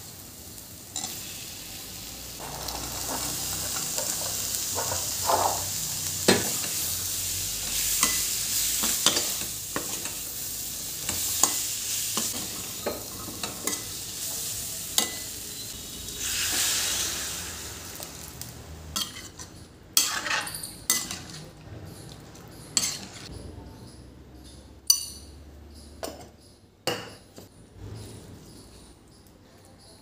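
Spiced masala frying and sizzling in a stainless steel kadai, stirred with a perforated steel spoon that scrapes and clicks against the pan. About sixteen seconds in, water poured into the hot pan brings a louder hiss; after that the sizzle fades, leaving scattered sharp clinks of the spoon on the steel.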